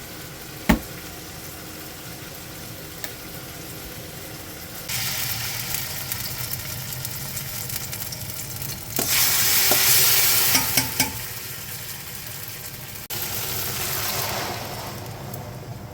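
Food sizzling in a frying pan, a hiss that comes in stretches and is loudest around the middle, with a few light clicks. A single sharp knock, like a utensil or pan set down, comes just under a second in.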